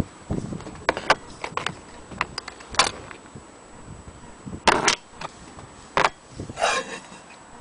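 An old anniversary dome clock being handled: irregular sharp clicks and knocks of its hard parts, a few of them loud, with a brief scrape near the end.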